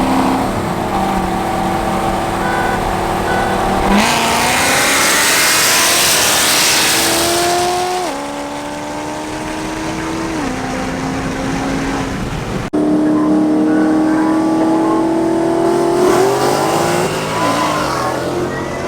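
Performance car engines accelerating hard: the engine note climbs steadily in pitch, drops back at each gear change, and climbs again.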